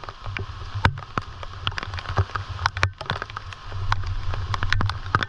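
Rain falling, with many sharp, irregular drop hits close to the microphone over a steady low rumble.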